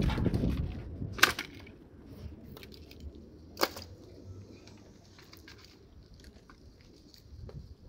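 Dry sticks cracking as they are broken up for kindling: two sharp cracks about two and a half seconds apart, with a few lighter clicks and snaps of twigs between and after them.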